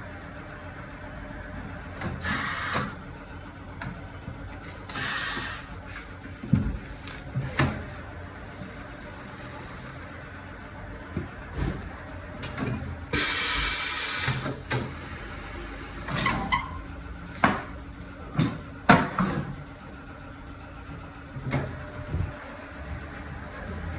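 Tyre-change work: a few short bursts of an air tool with hissing air, the longest about a second and a half, and scattered knocks and clanks of tools and wheel parts in between.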